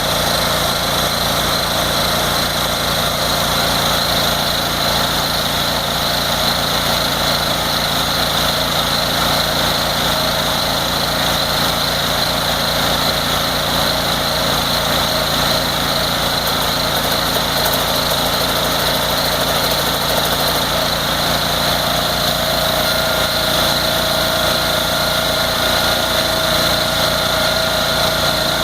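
A Terralift soil-fracturing machine's engine running steadily at an even pitch and level. About three quarters of the way through, a new steady whine joins it.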